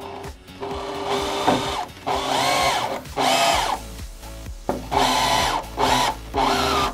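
Power drill running in about five short bursts, its pitch dipping and rising as it works, typical of driving screws while the electrical panel is mounted on the studs.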